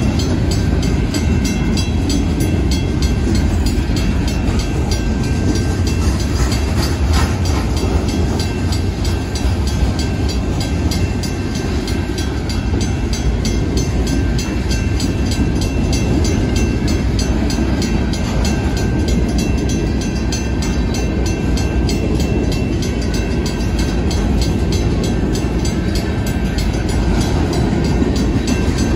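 Freight train's covered hopper cars rolling past at a crossing: a steady heavy rumble with rapid wheel clatter on the rails.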